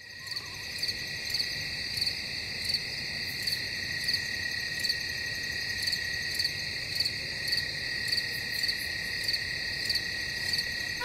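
Crickets chirping in a steady high-pitched chorus, with a louder chirp repeating about every two-thirds of a second.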